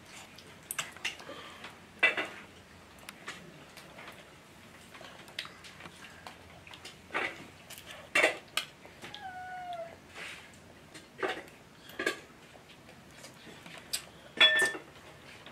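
Spoons and utensils clinking on plates as people eat, several sharp metallic clinks that ring briefly. A short falling meow from a cat about nine seconds in.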